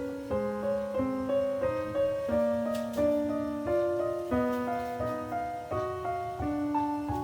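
Background piano music: a slow, gentle melody of held notes over lower notes.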